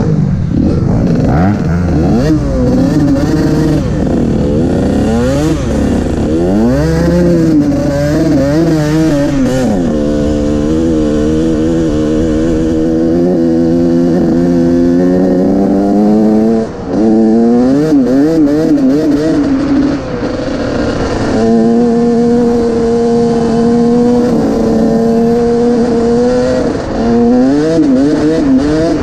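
Dirt bike engine running under the rider, revving up and down over the first ten seconds, then holding a steady pitch for stretches, with brief drops where the throttle is rolled off about seventeen seconds in and near the end.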